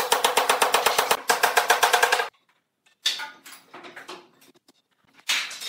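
A rapid string of sharp mechanical strikes, about ten a second for a little over two seconds, cutting off suddenly. Fainter, irregular knocking and clatter follow after a short gap.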